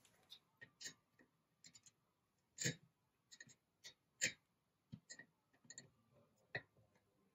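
Faint, irregular small metallic clicks and taps as needle-nose pliers grip and turn a nut against a stack of washers on an M4 threaded bar, the two loudest about two and a half and four seconds in.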